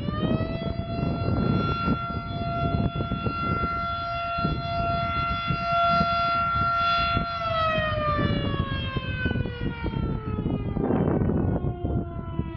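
Quarry blast warning siren sounding: one tone that rises into pitch at the start, holds steady for about seven seconds, then winds down slowly. A low rumble of wind on the microphone and the clicks of a camera shutter run beneath it.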